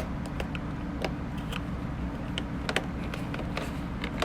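Scattered light clicks and taps of hard plastic toy parts being handled and snapped into place, over a steady low hum.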